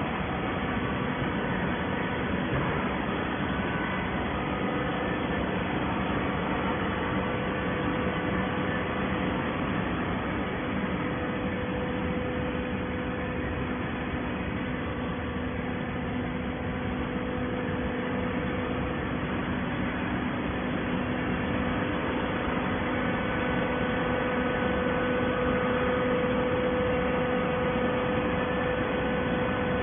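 Waste paper baler's machinery running with a steady hum and noise, with a constant tone.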